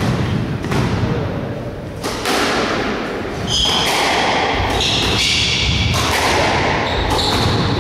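Squash rally: the ball is served and then struck by rackets against the walls, a series of sharp thuds roughly every second. From about three and a half seconds in, court shoes squeak on the wooden floor as the players move about.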